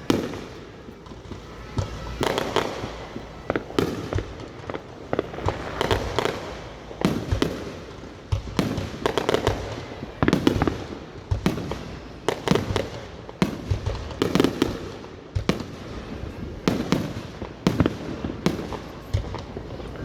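Fireworks display going off: a steady run of booming bursts and crackles, one or more every second, each bang trailing off in an echo.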